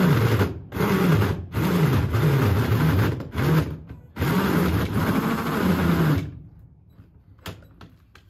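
Cordless DeWalt drill running a 70 mm hole saw into the bus's double-skinned side panel in a series of bursts, its motor pitch sagging and rising as it labours under load. The cut is going much harder than it should, straining the drill. It stops about six seconds in.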